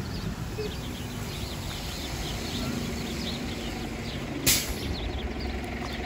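A flock of sparrows chirping busily and constantly over a low engine rumble. About four and a half seconds in, a short, loud hiss of a bus's air brakes.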